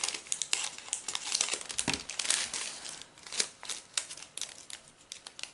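Plastic zip-lock baggies and drill packets crinkling and rustling as they are handled, with a run of irregular small crackles and clicks.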